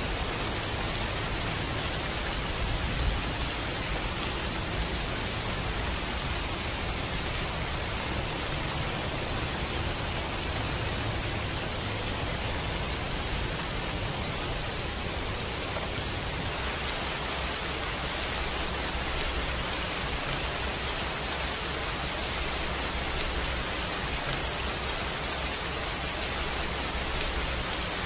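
Recorded rain falling steadily: an even hiss with no separate drops standing out. The texture shifts slightly about sixteen seconds in.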